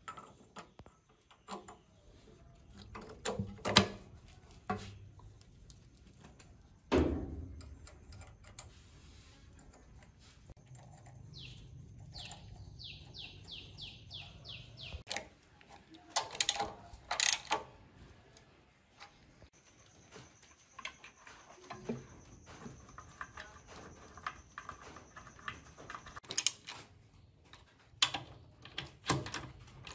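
Scattered clinks and knocks of small metal engine parts and tools being handled as a flange and fuel-line fitting are put on and their nuts threaded, with a run of quick descending chirps about halfway through and a ratchet wrench clicking near the end.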